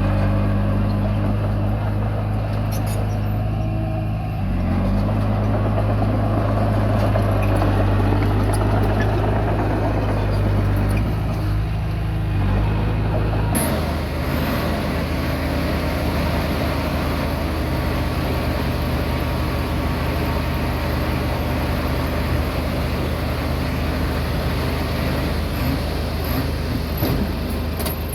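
Komatsu D20P bulldozer's diesel engine running steadily under load while it pushes soil. Its note shifts about four seconds in and changes suddenly about halfway through.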